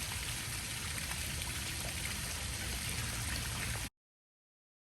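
Steady background noise, an even hiss with an unsteady low rumble and a few faint ticks, which cuts off abruptly to silence about four seconds in.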